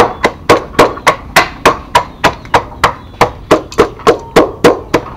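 Wooden pestle pounding crabs in a metal pot with steady strokes, about three or four a second, each thud ringing briefly off the pot. The crabs are being crushed to free the meat, done by hand for lack of a grinder.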